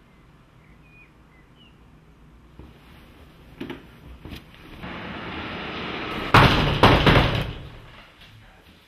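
A couple of light knocks, then loud banging and rattling on a glass-paned front door about two-thirds of the way in, fading off afterwards.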